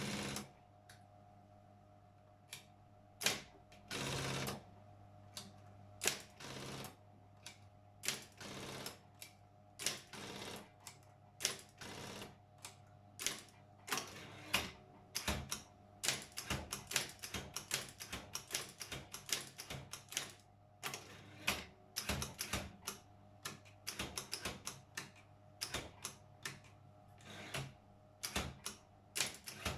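Brother 4612 electric typewriter with its motor humming steadily while keys strike in irregular runs of sharp clacks, getting faster from about halfway. In the first third there are several longer, half-second mechanical runs between the strikes.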